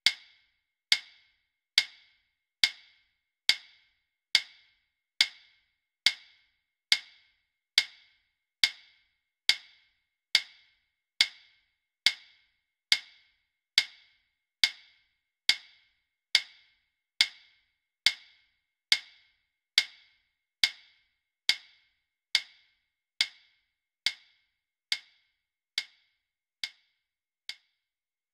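A single woodblock-like tick repeating at an even pace, a little more than once a second, after the drums stop. It fades gradually toward the end.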